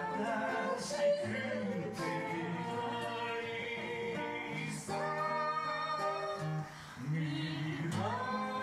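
A man singing live into a microphone while strumming an acoustic guitar. His voice is hoarse, which he puts down to singing without caring for his throat beforehand.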